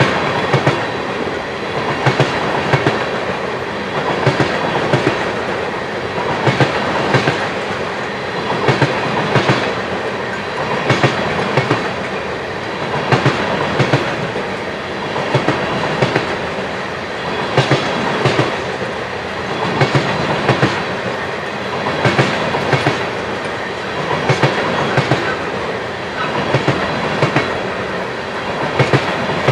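Freight train of flatcars loaded with wind turbine blades rolling past, its wheels clacking over the rail joints in regular clusters every second or two over a steady rolling rumble.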